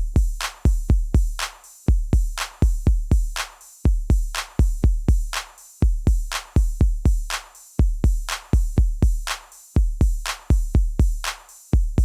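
Background electronic music: a drum-machine beat with deep kick-drum hits and crisp clap or hi-hat strokes, in a pattern that repeats about every two seconds.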